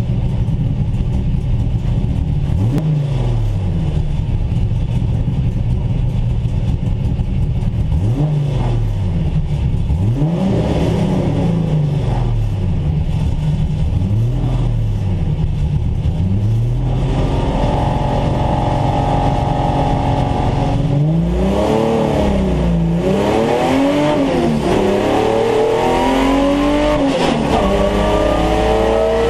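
Holden VT Commodore saloon car's V6 engine, heard from inside the cabin: idling with repeated short throttle blips while held on the starting grid, then revving up after about 20 seconds and accelerating hard through the gears, the revs dropping back at each upshift.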